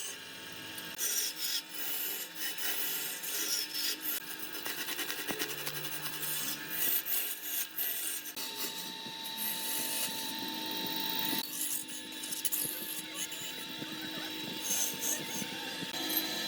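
Wood lathe in use: a hand tool scrapes against the spinning wood in irregular strokes, over a faint steady whine.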